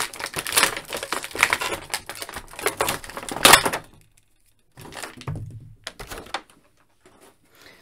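Thin clear plastic blister tray crackling and creaking as an action figure is worked loose and pulled out of it, with a louder crack about three and a half seconds in. A little more handling noise follows after a short pause.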